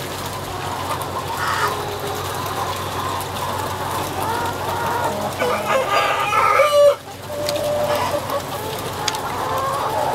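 A large flock of broiler breeder chickens clucking and calling all at once, many overlapping voices, with one louder call about two-thirds through that cuts off abruptly. A steady low hum runs underneath.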